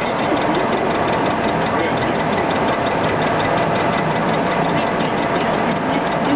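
Jig boring machine running: a steady mechanical whir with one constant tone and a fast, even ticking in the high range.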